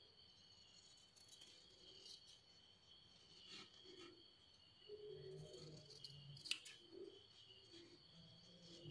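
Faint scissors cutting through folded satin cloth: soft snips and a few light clicks of the blades, the sharpest about six and a half seconds in. A steady, faint high-pitched tone runs underneath.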